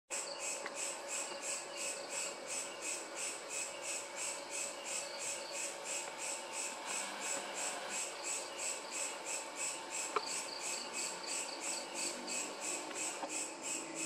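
Crickets chirping in an even, rapid rhythm of about four pulses a second, with one sharp click about ten seconds in.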